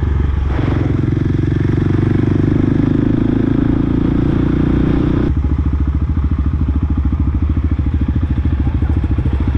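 Supermoto motorcycle engine running with a steady, even pulsing. About five seconds in the sound changes abruptly, losing its higher hiss while the low pulsing goes on.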